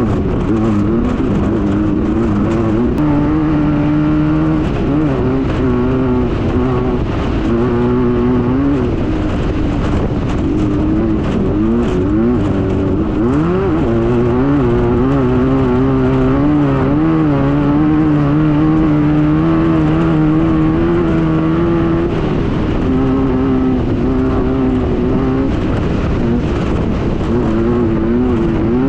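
Class 9 VW buggy's air-cooled VW flat-four engine running hard under racing load, its pitch wavering and shifting with throttle and gear changes, including a dip and quick climb about halfway through, over a constant rattle and rush of the car over rough ground.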